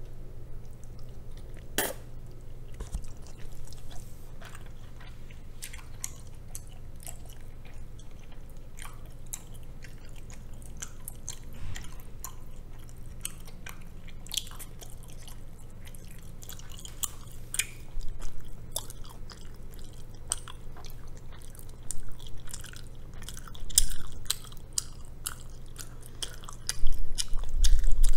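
A person chewing a mouthful of rabokki (ramen noodles and rice cakes in a spicy cheese sauce): a steady run of small wet clicks and smacks, louder in several stretches during the last ten seconds. A steady low hum runs underneath.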